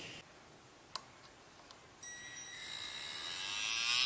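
Small DC motor of a homemade needle drill (motor with a 1 mm drill bit in a ballpoint-pen body) running with a high whine that starts about halfway through and grows steadily louder. A single click comes about a second in.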